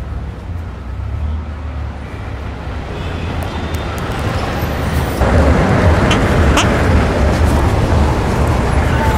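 City street traffic noise: a steady rumble of passing cars, which grows louder about five seconds in.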